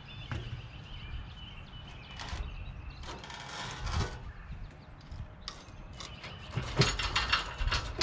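Wooden 4x4 block knocking and scraping against the steel sawmill track as it is worked out from under the rail, with a few separate knocks and then a quick run of sharp clicks near the end.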